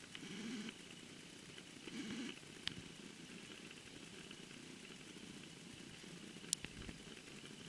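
Two sharp pops of a tennis ball struck by a racket, about four seconds apart, the second louder, over a steady low background hum.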